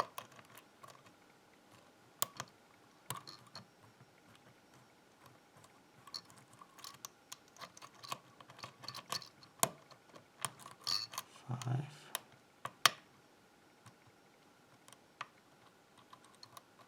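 Hook pick and tension wrench working inside a Zeiss Ikon pin-tumbler cylinder during single-pin picking. Scattered small metallic clicks and light scraping, with a short run of closer clicks a little past the middle.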